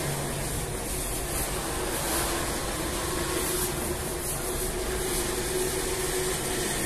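Automatic rotary bread-baking machine running while it heats up: a steady mechanical rush with a faint constant hum.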